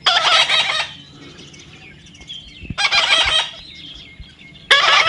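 A parrot squawking: three harsh, loud calls, roughly two seconds apart.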